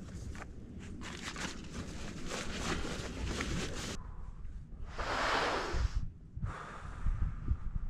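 Wind buffeting the microphone with a low rumble, over irregular rustling and scuffing. A louder rush of air comes about five seconds in.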